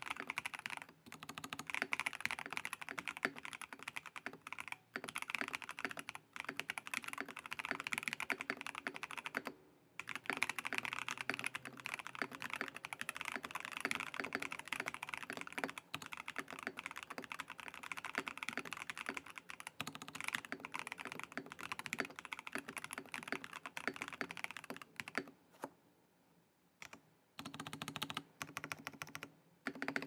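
Fast typing on a Razer BlackWidow V4 75% mechanical keyboard with stock Razer Orange tactile switches, its case foamed and tape-modded: dense runs of key clacks broken by short pauses, thinning to a few scattered key presses near the end.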